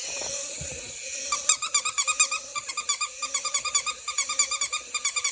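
A rapid run of short, high, squeaky chirps, about five or six a second, starting about a second in.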